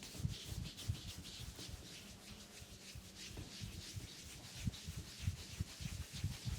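Hands rubbing and massaging skin close to the microphone, in quick, irregular strokes.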